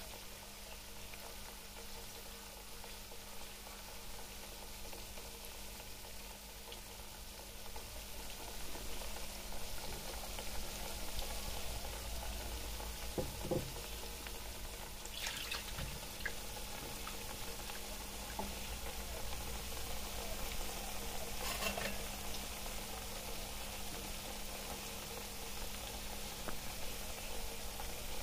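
Hot oil sizzling steadily as battered pakora fry, growing a little louder about eight seconds in, with a few brief knocks.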